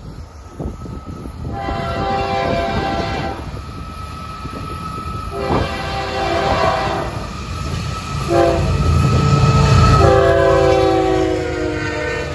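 Florida East Coast Railway GE ES44C4 locomotive's air horn sounding the grade-crossing signal, long, long, short, long, as the freight approaches the crossing. Under the last blasts, the diesel engine's rumble and the rolling noise of the train grow louder as it draws near.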